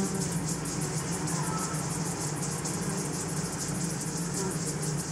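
Honeybee colony in an open top bar hive humming steadily, a low even drone from the bees on the exposed comb. A high-pitched insect chorus pulses rapidly behind it.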